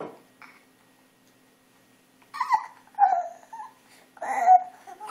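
Three short, high-pitched vocal calls about a second apart.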